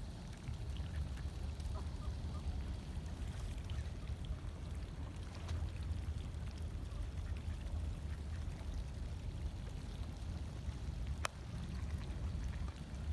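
A duck's faint, weird-sounding calls over a steady low rumble, with one sharp click about eleven seconds in.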